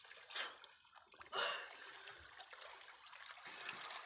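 Sea water splashing from a person swimming, with two sharp splashes in the first second and a half, the second the louder, then softer sloshing and lapping.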